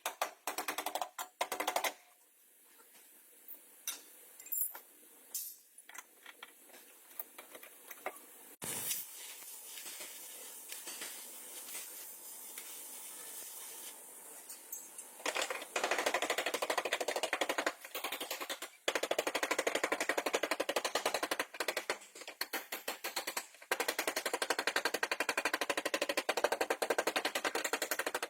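A rapid, dense crackling rattle from a bodywork tool comes in stretches of several seconds: briefly at the start, then almost continuously through the second half, with short breaks. In between there is a quieter stretch of scattered clicks and taps.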